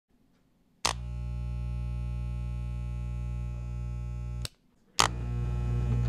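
Black and silver Wahl electric hair clipper switched on with a click, running with a steady buzz, switched off about three and a half seconds later, then switched on again half a second after and running on.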